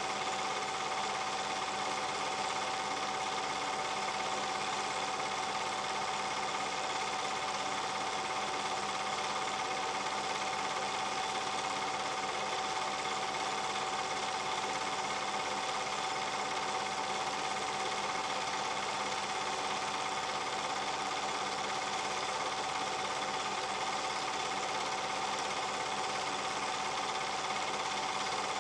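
Steady, rapid mechanical clatter with a constant whine, unchanged through the whole stretch: the running sound of a film projector.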